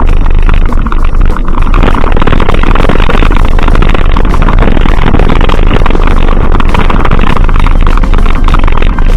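Loud, distorted vehicle noise with wind on the microphone, constant with no breaks.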